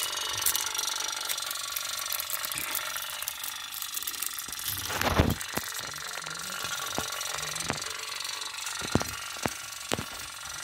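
Toy pop-pop (putt-putt) steam boat running on the water, its wick-heated boiler giving a rapid, even rattling tick. A brief louder thump comes about halfway through, and a few sharp clicks near the end.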